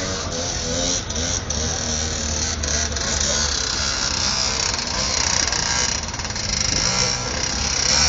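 Small motor of a concrete mixer converted into a ride-on motorbike, buzzing steadily as it drives along.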